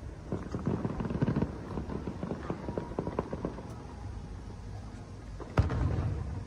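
Aerial fireworks bursting: a dense run of small crackling pops through the first half, then one loud boom about five and a half seconds in, followed by a low rumbling echo.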